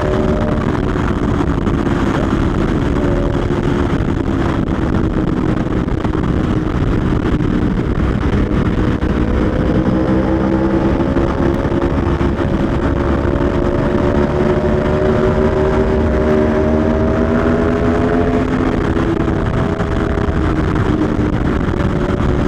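Aprilia Tuono V4 1100 Factory's V4 engine running hard at road speed over a steady rush of wind. Its pitch climbs slowly for several seconds from about the middle, then drops near three-quarters of the way through.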